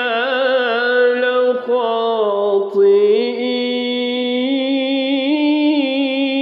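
A male reciter chanting the Quran in tajweed style, drawing out a syllable of the verse. His voice turns and wavers in pitch for about three seconds, breaks off briefly, then settles into a long steady held note.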